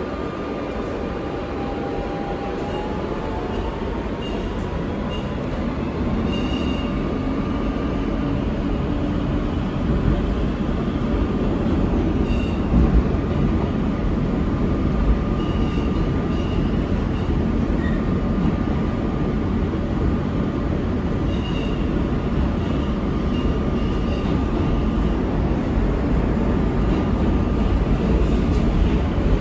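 An R160B subway train with Siemens propulsion running in a tunnel: a steady rumble of wheels on rail that grows louder over the first several seconds as the train picks up speed. A faint rising whine comes from the traction motors early on, and a few sharp knocks from the wheels follow later.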